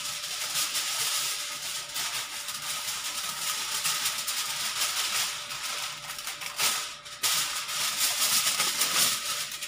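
Aluminium foil crinkling and rustling as a sheet is pulled off the roll and handled to wrap a fish, with louder crackles in the last few seconds.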